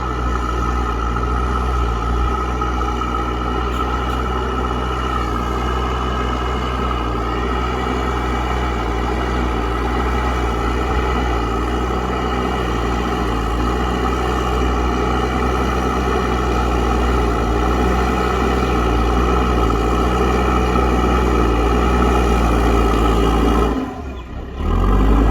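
Diesel engine of a JCB 3DX backhoe loader running steadily under load, with a slight shift in pitch partway through. The sound breaks off briefly near the end, then resumes.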